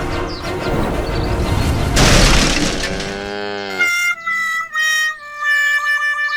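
Music overlaid with sound effects: a crash about two seconds in, then a falling slide in pitch, then a simple tune of short held notes.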